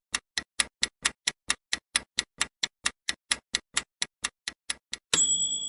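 Quiz countdown timer sound effect: fast, even ticking, about four or five ticks a second, ending about five seconds in with a bright bell-like chime that rings on and fades, marking time up.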